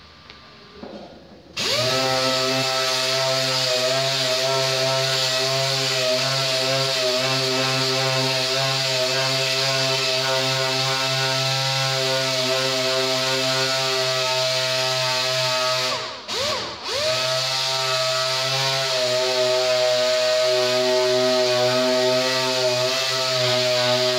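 Air-powered sander running steadily on a car's front fender panel, starting suddenly about a second and a half in. About two-thirds of the way through it briefly slows and drops off, then spins back up.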